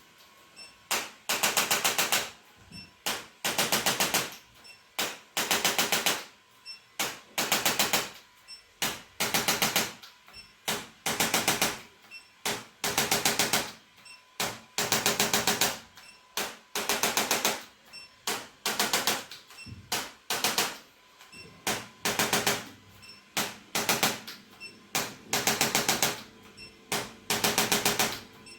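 Handheld electric percussion device rattling in very rapid pulses, in bursts of about half a second to a second that repeat roughly once a second.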